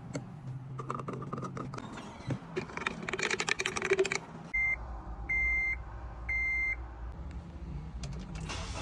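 Irregular clicking and rattling handling noises, then three short electronic beeps at one high pitch, about a second apart.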